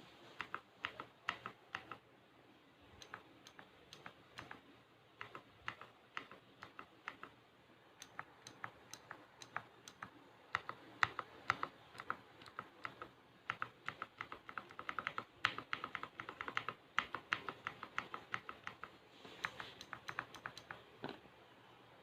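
Keypresses on overlubed Outemu Blue clicky mechanical keyboard switches: sharp clicks in irregular runs, with a dense, fast run of clicks around the middle.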